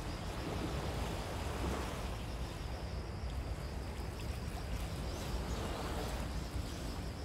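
Steady rushing background of sea waves on a rocky shore mixed with wind, with a low rumble on the microphone.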